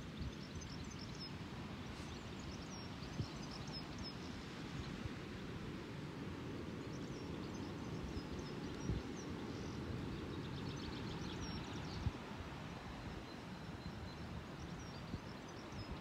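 Dense, steady crackling and scratching picked up by a piezo contact microphone in a dung pat, with a few sharper clicks: the vibrations of dung beetles and other soil insects moving and feeding inside the dung.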